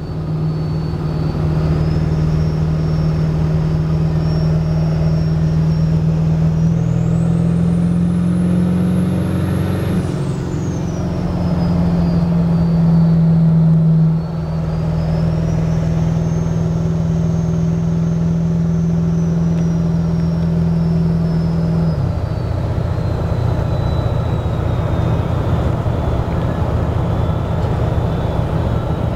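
2002 Ford 7.3L Powerstroke V8 turbodiesel running with the high whistle of its BD Thruster 2 turbocharger over the engine. The whistle climbs steeply about seven seconds in, falls away sharply at about ten seconds, rises again around fourteen seconds and then slowly sinks. The engine note drops at about twenty-two seconds.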